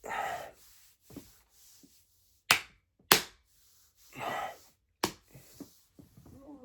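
Sharp slaps on a large, full bare belly, three in all: two about half a second apart a couple of seconds in and one near the end, with heavy breaths between them.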